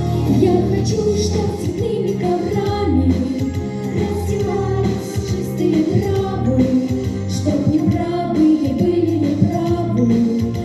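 Two young girls' voices singing a duet of a Russian rock song over an instrumental backing track with held bass notes.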